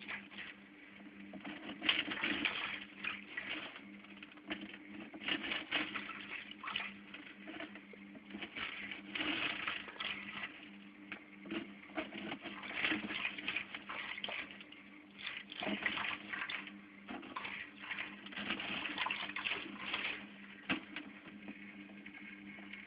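Aquarium water sloshing and splashing in irregular surges every second or two, over a steady low hum.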